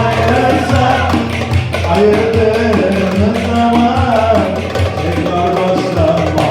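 Turkish pop-folk music: a melodic line over a steady bass and percussion beat.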